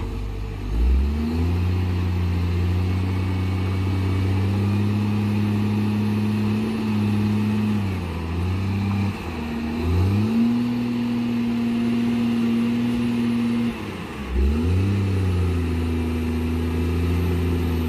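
Heavy engine sound for a toy motor grader: a steady low drone, like a diesel running, that drops in pitch and revs back up a few times, about a second in, around eight to ten seconds in, and again around fourteen seconds in.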